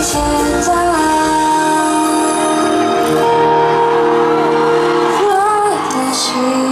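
Live pop ballad performance: a singer holds long notes over a backing track. The deep bass drops out about a second and a half in, and a wavering vocal line comes in near the end.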